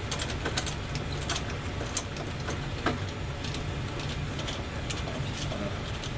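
Steady low mechanical hum, with scattered light clicks and taps of hand work on metal parts.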